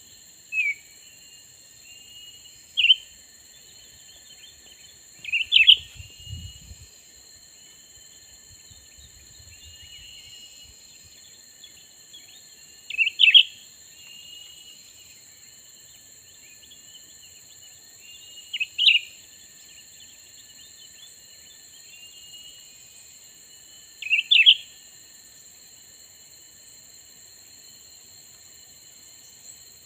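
Cucak ranting calling: short, sharp notes repeated every few seconds, with fainter chirps in between, over a steady high insect drone.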